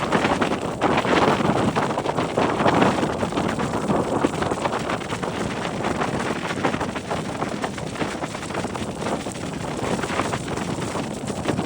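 Wind buffeting the microphone while riding a motorcycle at speed, with the bike's running drowned under a steady rush of wind noise.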